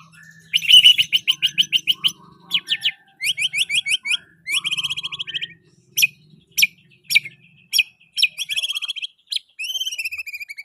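White-rumped shama singing a fast, varied song packed with learned fill-in phrases. It has bursts of rapid repeated notes and trills and sharp single chips, and near the end a long whistled note that falls and then holds.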